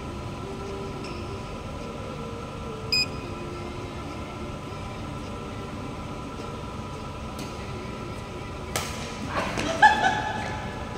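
Badminton rally on an indoor court over a steady background hum: a short sneaker squeak about three seconds in, then a sharp racket strike on the shuttlecock near the end, followed by several quick shoe squeaks on the court floor as a player lunges.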